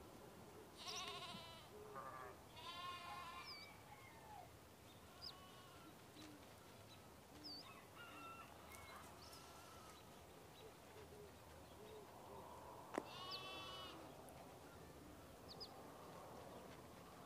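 A few drawn-out, wavering animal calls over a quiet background: two close together from about one to three and a half seconds in, and one more near the end. Tiny high chirps fall between them.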